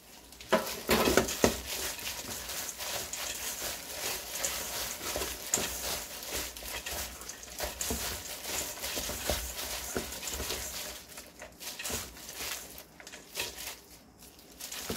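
Dried shredded squid being hand-mixed with gochujang seasoning in a stainless steel bowl: a plastic-gloved hand scrunches and tosses the strands, giving irregular rustling and crackling with small scrapes against the bowl. It is loudest about a second in and eases off near the end.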